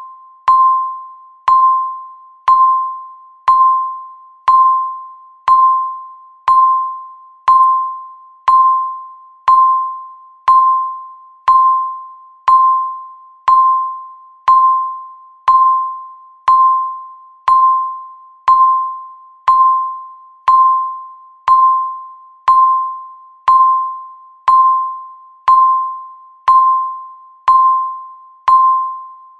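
Electronic countdown-timer beep: one short, pure tone near 1 kHz every second, each starting sharply and fading away before the next, marking each second that passes.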